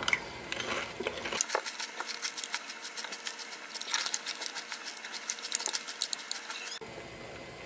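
Crunchy caramel nut cereal being chewed close to the microphone: a fast, irregular run of crisp crackles that stops suddenly near the end.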